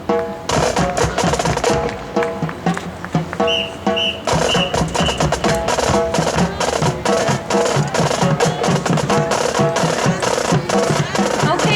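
Marching band playing, with rapid drumline percussion under held brass chords; a few high bell-like notes sound about four seconds in.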